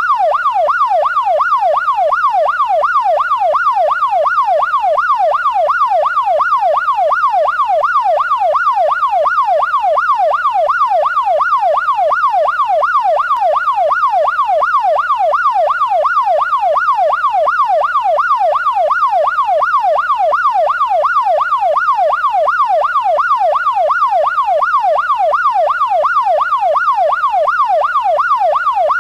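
Police siren in its fast yelp mode: a pitch sweeping quickly up and down about two and a half times a second, loud and unchanging throughout.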